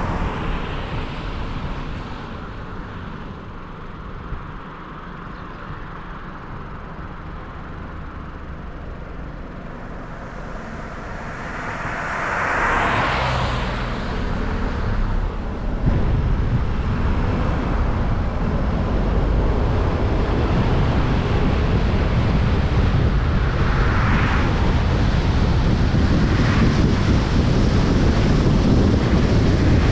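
Tyre and wind noise of a car driving, louder from about halfway through, with wind buffeting the microphone. Several passing vehicles whoosh by, the loudest about a third of the way in and two more near the end.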